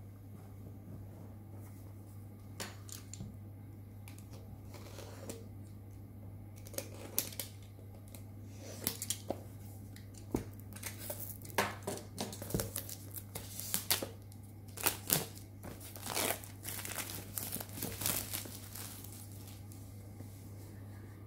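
Clear plastic shrink wrap being slit with a utility knife and peeled off a cardboard box: irregular crinkling and crackling, sparse at first, then busy through the middle, easing off near the end.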